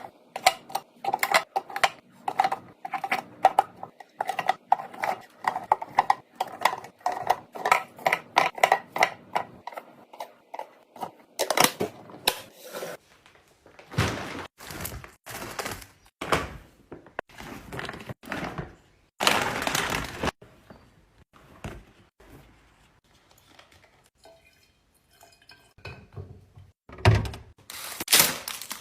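Containers and groceries being handled while a fridge or pantry is restocked. First comes about ten seconds of rapid clinking and clattering of small hard items, then rustling and scraping bursts. A heavy thunk comes near the end.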